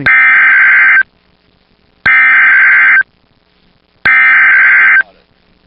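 Emergency Alert System (SAME) header on a weather-radio broadcast: three one-second bursts of warbling digital data tones, about a second apart. They are the coded lead-in to a National Weather Service tornado warning.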